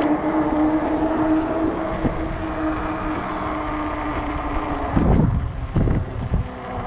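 Riding an Ecotric 48 V fat-tire e-bike: a steady hub-motor hum over tyre and road noise, with the hum fading out about three seconds in. Near the end, wind gusts buffet the microphone.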